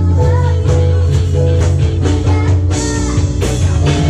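Live pop-funk band music: an electric guitar line with bending notes leads over bass, drums and keyboard chords.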